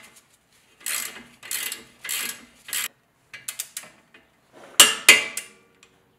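Socket wrench ratcheting as it runs the castellated nut down onto a tie rod end stud, several short strokes of ratchet clicking. About five seconds in come two sharp metallic clicks close together as the nut is tightened toward 55 ft-lb.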